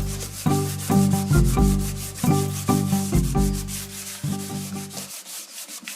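Wet sanding with 400-grit sandpaper, rubbing back and forth over freshly painted surfaces to knock down heavy paint, over background music with a repeating bass line.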